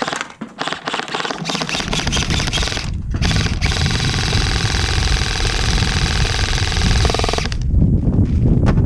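Krytac PDW electric airsoft gun firing on full auto, the gearbox clattering rapidly: a few short bursts, then one long burst of about four seconds that stops abruptly.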